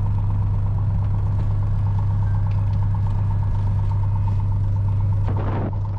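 Light single-engine plane's piston engine running steadily at low power, heard inside the cockpit as a deep, even drone. A brief louder sound rises over it near the end.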